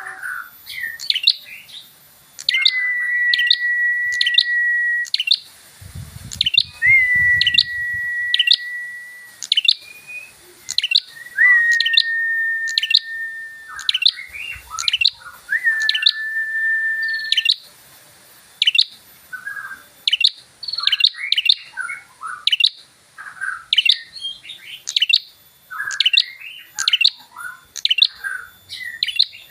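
Prinia (prenjak) singing constantly: a fast run of sharp rising chirps, about two a second, with four long steady whistled notes of about two seconds each in the first half. A few low knocks sound about six to eight seconds in.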